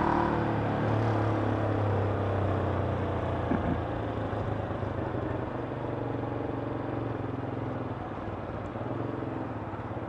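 Motorcycle engine running as it is ridden through town traffic, mixed with the sound of other vehicles. A low engine drone is strongest in the first few seconds and then fades.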